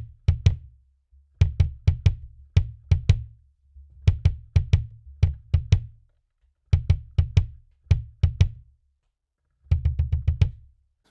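Kick drum struck by a single pedal fitted with a Lowboy custom leather beater, played in quick groups of two to five strokes with short pauses between them. Each stroke has a sharp, clicky attack over a low thump.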